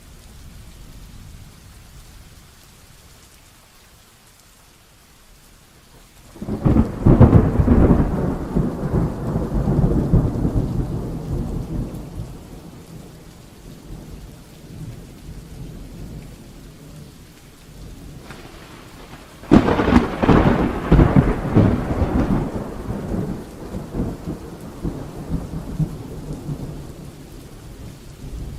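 Heavy rain falling steadily, with two thunderclaps: one about six seconds in and another about two-thirds of the way through, each starting suddenly and rumbling away over several seconds.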